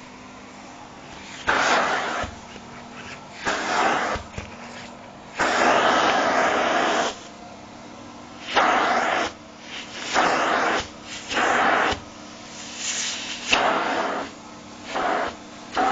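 Vacuum cleaner nozzle working over a shiny nylon down jacket. The running motor gives a steady low hum, and irregular loud bursts of sucking and rustling, each about a second long, come as the nozzle grips and drags the fabric.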